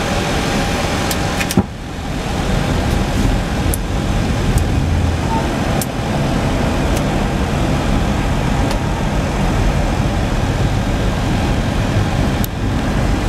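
Steady flight-deck noise of an Airbus A320 in flight, airflow and air conditioning, strongest at the low end. A few faint clicks sound through it, with a sharper click about one and a half seconds in.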